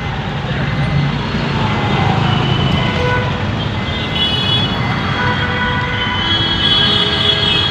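Steady low rumble of vehicles crawling in a traffic jam, with short high-pitched tones dotted through it.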